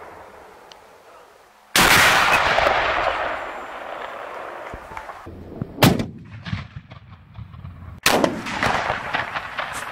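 Homemade breech-loading salute cannons (Böllerkanonen, 50–85 mm calibre) firing blank salute shots in turn. There is a loud bang about two seconds in with a long fading echo, a sharp crack near six seconds, and another bang with a fading tail about eight seconds in.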